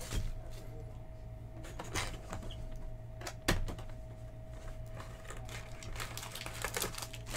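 Cardboard hobby box of trading cards being opened by hand: scattered taps and scrapes as the lid and inner flap are lifted, with a sharper tap about three and a half seconds in, over a faint steady hum.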